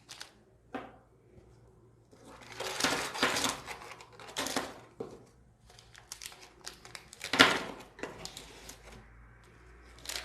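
Small wrapped washing-machine descaler tablet packets being handled: bursts of plastic crinkling and light clatter, with one sharp click about seven seconds in, the loudest sound.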